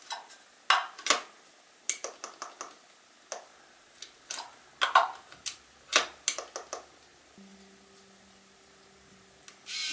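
Small buttons on the back of a Fuji Tiara ix APS compact camera being pressed, giving about a dozen sharp clicks in irregular clusters. The clicks stop after about seven seconds, when soft guitar music starts, with a strum near the end.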